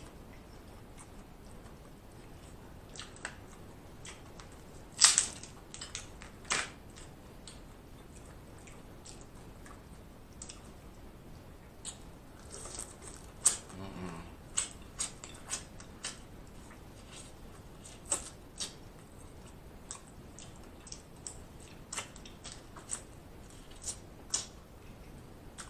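Close-miked mouth sounds of a man eating snow crab and shrimp: wet lip smacking and chewing in scattered sharp clicks. There are two louder smacks about five and six and a half seconds in, and quicker ones through the second half.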